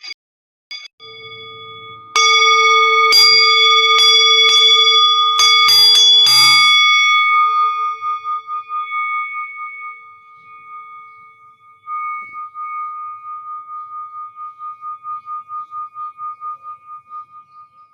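Metal singing bowls struck several times in quick succession, their layered tones ringing together. A long ringing tone then dies away, pulsing steadily in loudness. About twelve seconds in, a bowl is struck again or set ringing.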